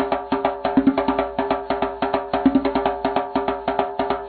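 Background music: a fast tune of short, clipped notes at an even pace, with a wood-block-like percussive tap.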